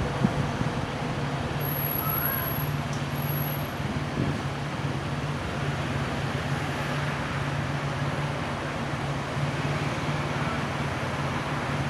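A steady low mechanical hum over a continuous street-noise background, with a single small knock just after the start.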